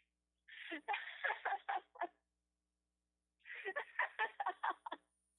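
Two bouts of a person laughing, each a quick run of short pulses of about a second and a half, with a pause between them; the sound is thin, as over a phone line.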